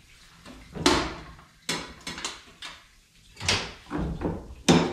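Cylinder honing machine and its hone shaft being handled over an LS engine block: a series of about six sharp metallic clanks and knocks with short ringing tails, over a faint low hum.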